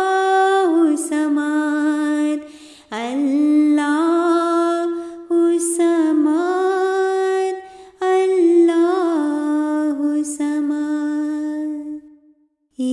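A single high voice singing a wordless, unaccompanied devotional melody, with long held notes that waver and turn. It comes in three drawn-out phrases with short breaks between them, the last ending in a brief silence near the end.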